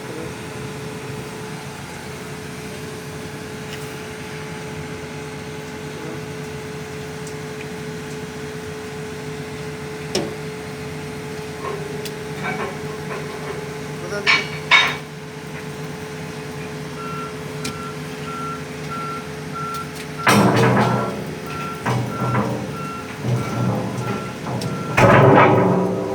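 A heavy machine's engine running steadily with a held whine, then a vehicle's reversing alarm beeping in a quick even series from about two-thirds of the way in. Loud clattering bursts come near the end.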